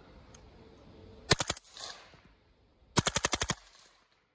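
Suppressed AR-15-style rifle with a Wide Open Trigger, a forced-reset trigger, firing two very rapid strings of shots: about four shots a little over a second in, then about eight more near three seconds in.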